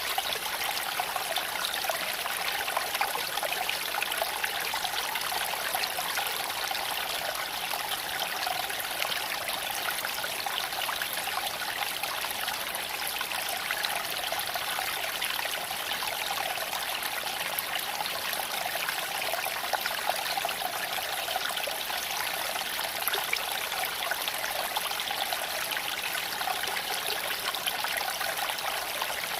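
Small creek flowing over stones, a steady trickling and babbling of water with no breaks.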